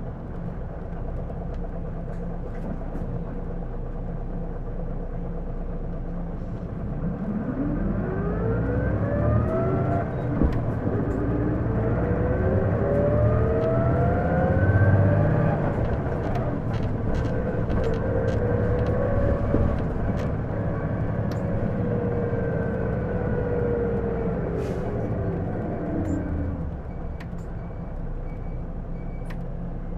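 Running sound heard inside an Isuzu Erga PJ-LV234L1 city bus accelerating: a whine climbs in pitch from about seven seconds in, then sinks back as the bus slows toward the end, over the steady engine drone. The whine comes on at every acceleration and sounds like an automatic transmission; the uploader takes it for an abnormal noise and asks whether it is transmission-related.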